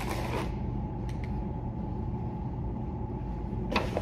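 Steady low hum of room air conditioning with a faint constant tone. A brief rustle comes at the start, and another near the end as a hand handles the phone camera.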